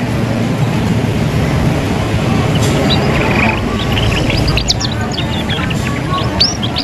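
Young canary twittering in short high chirps and quick rising notes, scattered at first and more frequent in the second half, the unfinished warbling of a juvenile bird learning its song. Under it runs a steady low rumble of background noise.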